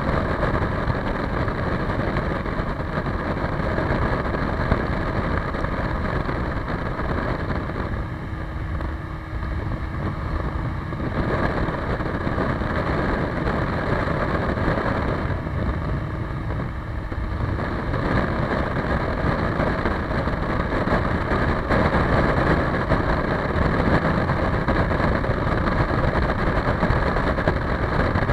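Motorcycle riding at highway speed: the engine runs under a constant rush of wind and road noise. It goes quieter twice for a few seconds, about eight and fifteen seconds in.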